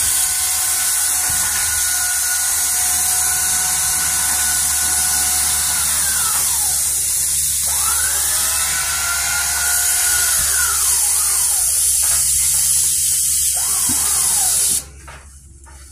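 Loud, steady hiss of steam from a propane-fired live-steam locomotive, with an electric motor's whine over it that winds down about six seconds in and winds back up soon after. Both stop abruptly near the end.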